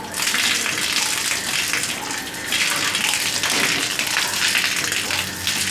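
Water running steadily from an adjustable basin mixer tap.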